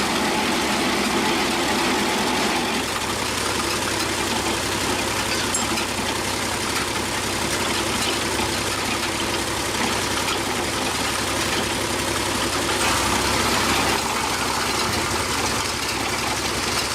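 An engine running steadily at idle, with a constant even drone.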